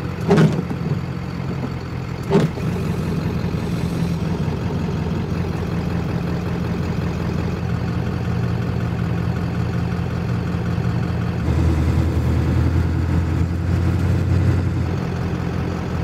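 A 1996 Ford F350's 7.3 L Powerstroke diesel engine running steadily while driving in city traffic. About eleven and a half seconds in, its low rumble deepens and grows louder. Two short knocks come in the first few seconds.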